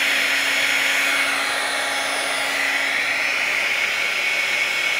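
Handheld electric heat gun running steadily: a continuous rush of fan and hot air, with a faint low hum under it that drops out near the end.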